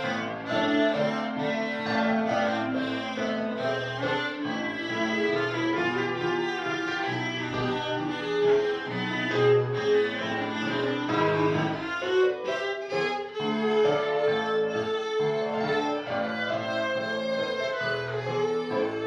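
Instrumental background music carried by bowed strings, violin and cello.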